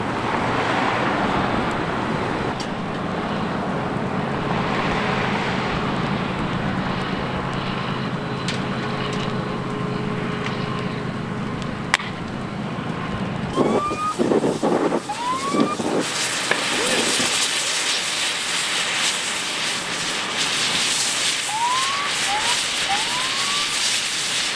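Burning semi-truck cab giving a steady roar of flame with occasional sharp crackles. About halfway through, a flurry of pops and short rising squeals breaks out, then a loud hiss of escaping air sets in and keeps going, taken for the truck's air tanks letting go in the fire.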